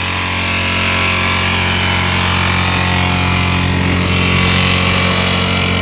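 A vehicle engine running steadily, with road and wind noise from driving along a highway.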